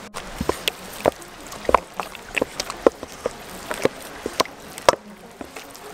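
A slotted wooden spatula folding cream into mashed potatoes in a stainless steel bowl. It makes a string of irregular clacks and taps of wood on the metal bowl, about three a second, some with a short metallic ring. The tapping thins out near the end.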